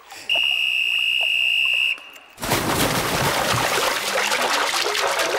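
One long, steady blast on a whistle, lasting about a second and a half, gives the start of the swimming race. About half a second after it stops, loud splashing of swimmers thrashing through the pool water begins.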